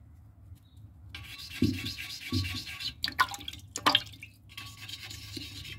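Pumice stone scrubbing wet toilet-bowl porcelain around the trapway in irregular strokes, a gritty rasping that starts about a second in, with water splashing. It is scouring off blue stains left by toilet dye tablets.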